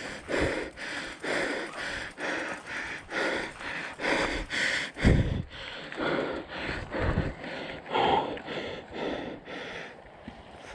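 Mountain biker breathing hard, short heavy breaths about twice a second, with a low thump about five seconds in.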